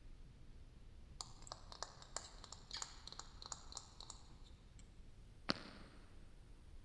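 A quick run of light clicks and taps on a hard object, then one louder, sharper click with a short fading ring about five and a half seconds in.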